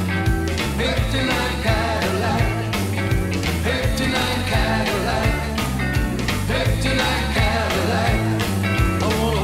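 Up-tempo jive music, a rock-and-roll-style song with a singer over a steady driving beat, played for a ballroom jive heat.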